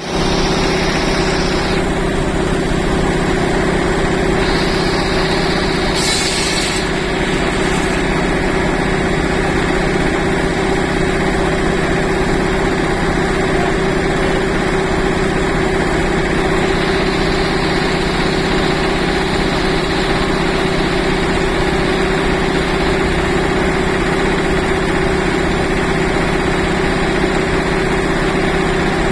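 Old sawmill machinery running, a steady mechanical drone with a constant hum, and a brief hiss about six seconds in.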